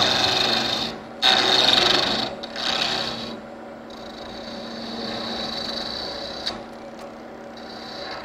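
Gouge cutting a spinning wooden knob blank on a wood lathe. The cut is loudest in two passes over the first couple of seconds, with a short break about a second in, then goes on lighter over the lathe's steady hum.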